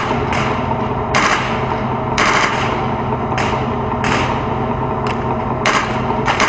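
T-72 tank's diesel engine running steadily, heard through the turret-mounted camera, with short sharp bursts of noise breaking in irregularly about once a second.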